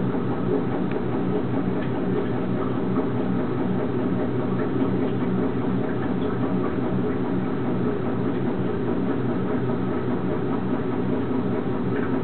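Steady low mechanical hum, like an idling engine or machine, with a few faint ticks over it.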